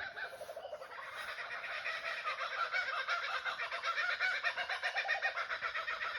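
Laughing kookaburras calling together in a chorus: rapid rolling, chuckling notes that build up after about a second and run on without a break.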